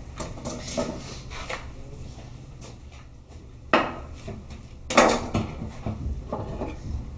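Metal butchering tools knocking and clattering on a wooden butcher block, with two sharp knocks about four and five seconds in.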